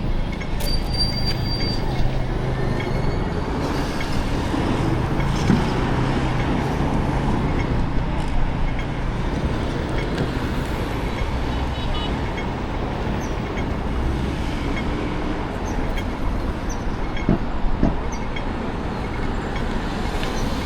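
Steady city street traffic noise, with a brief high beep about a second in and a few short knocks near the end.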